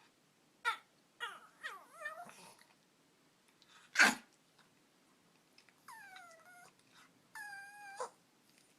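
An excited dog vocalizing in a run of short, sliding whines and two longer whining calls, the second held steady, broken by short sharp bursts of breath, the loudest about four seconds in.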